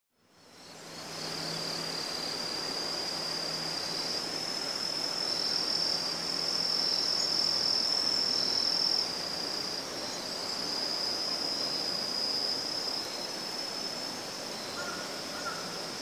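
Forest ambience: insects singing in a steady high-pitched trill over a soft hiss. It fades in over the first second.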